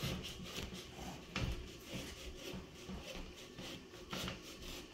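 A small hand hacksaw scraping through the thick rind and flesh of a large, partly frozen pumpkin in faint, irregular strokes. There is a sharper knock about a second and a half in and another about four seconds in.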